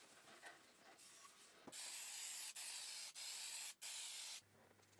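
Clear coat being sprayed onto timber in three hissing bursts that start and stop sharply, after a little more than a second and a half of faint rubbing.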